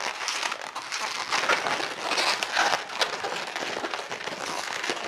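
Inflated latex 260 twisting balloons rubbing and squeaking against each other and against hands while being twisted into pinch twists.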